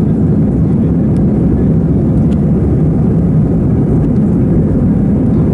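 Steady low rumble of an Airbus A320 heard from inside the passenger cabin as the airliner rolls slowly on the ground: engine and airflow noise with no change in pitch.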